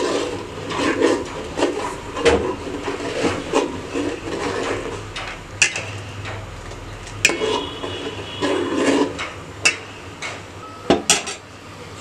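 Metal spoon stirring milk in a steel pot, with irregular clinks and scrapes against the pot's sides and bottom; a few strikes ring briefly.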